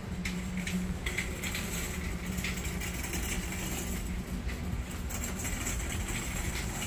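Steady low hum and rumble of a large warehouse store's interior, with faint irregular clicks scattered through it.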